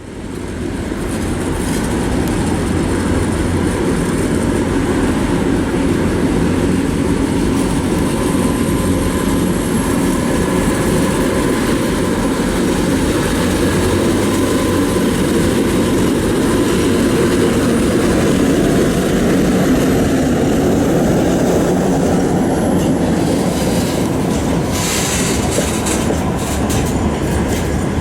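ChME3 diesel shunting locomotive and its freight train rolling in, a steady deep rumble of the diesel and wheels with clatter over the rail joints. Sharper, high-pitched wheel noise joins in over the last few seconds.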